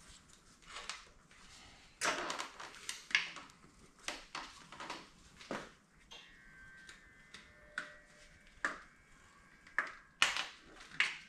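Irregular sharp clicks, taps and rustling of hands working on an Aprilia Tuono V4 motorcycle, handling its EVAP hoses and plastic clips.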